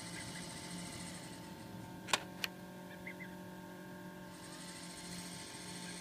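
Steady hum and hiss of an egg incubator running with its automatic humidity water pump. About two seconds in come two sharp clicks a third of a second apart, and the high hiss fades out for a couple of seconds in the middle.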